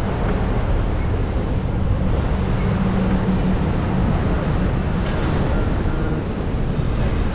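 Wind rushing over the microphone of a moving bicycle in city traffic, with a steady low hum for the first four seconds or so.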